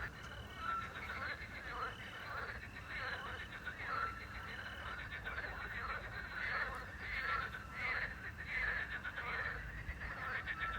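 Chorus of frogs croaking, with a small owl's short whistled note repeating about every three seconds and crickets chirping underneath.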